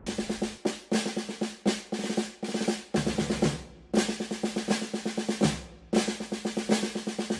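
Snare drum playing fast rolls and runs of quick strokes, broken by several short pauses.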